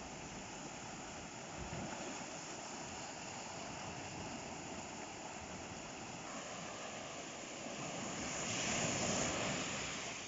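Ocean surf washing steadily on the shore, with one wave swelling louder and brighter about eight seconds in before easing off.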